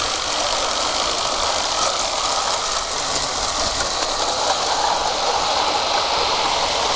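Small 16mm-scale live-steam model locomotive running with a train of hopper wagons: a steady hiss with rumble.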